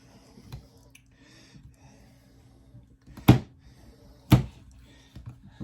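A Leatherman ratchet driver is handled while it drives a screw into a block of wood, with faint clicks and rubbing. About three seconds in come two sharp knocks, about a second apart.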